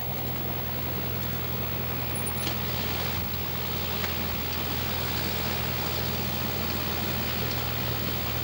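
Cessna light aircraft's piston engine and propeller running steadily at low power after landing, a low, even drone heard from inside the cabin as the plane taxis.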